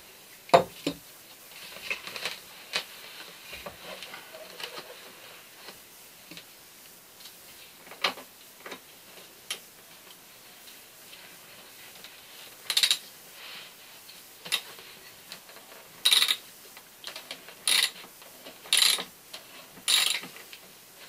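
Workshop handling noises from taking apart a 1965 Corvette seat by hand: a sharp knock about half a second in, scattered clicks and knocks, then five short noisy bursts in the second half as a hand tool works at the top of the seat back.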